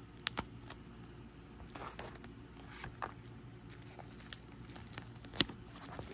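Cellophane shrink-wrap on an album box crinkling and crackling as it is picked at and peeled, in scattered small clicks with the sharpest about five seconds in.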